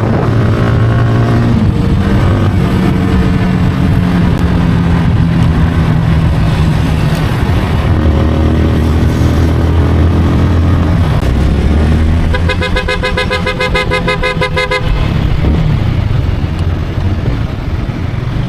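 Motorcycle engine running while riding, with wind rush. The engine pitch rises and falls as the bike speeds up and shifts. A vehicle horn sounds steadily for about two and a half seconds, starting about twelve seconds in.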